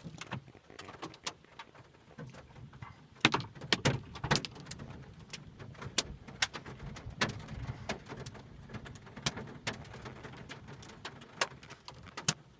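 Hailstones and rain striking a 1991 Lincoln Town Car's roof and windshield, heard from inside the cabin. Irregular sharp knocks land over a steady patter, with the loudest every second or two.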